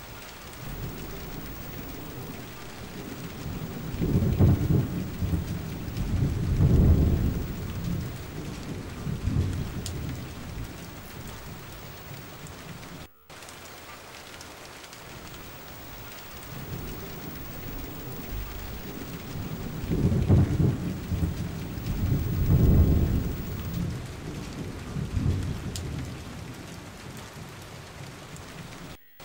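Steady rain with rolling thunder: long low rumbles swell about four and seven seconds in, and again around twenty and twenty-three seconds in, over a constant hiss of rain. The sound cuts out for an instant about halfway through.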